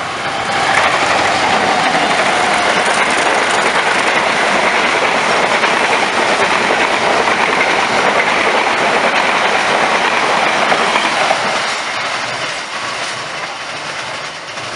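Diesel-hauled passenger train passing at speed: locomotive and coaches running over the rails. The noise swells about a second in, holds steady for around ten seconds, then fades as the last coaches pull away.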